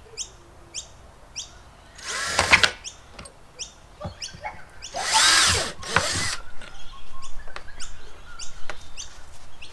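Cordless drill boring a hole into a hard plastic case, in two bursts: a short one about two seconds in and a longer one about five seconds in, the motor pitch rising and falling as it spins up and stops.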